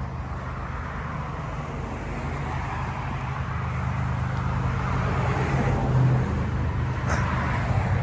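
Pressure washer running steadily, its motor humming under the hiss of the water jet blasting into soil, growing a little louder toward the middle.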